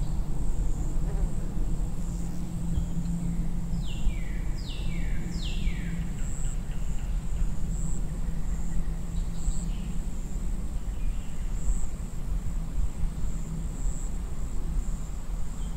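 Outdoor ambience with a steady high insect trill over a low rumble. A few short chirps slide down in pitch, three in quick succession about four seconds in and again at the very end.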